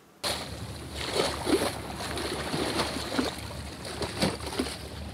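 Sea water splashing and sloshing close to the microphone. There are irregular splashes over a steady low rumble, starting abruptly just after the start.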